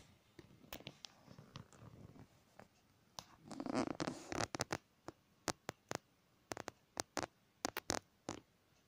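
A cat playing with a small toy rat on a fabric sofa: a scratchy scuffling rustle as it grabs the toy, then an irregular run of sharp clicks and scratches as its claws and teeth work at the toy and the fabric.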